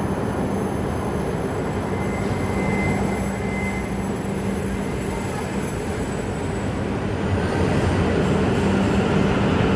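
Shinkansen bullet train running: a steady rumble and rushing noise with a low hum, and a faint high whine a few seconds in.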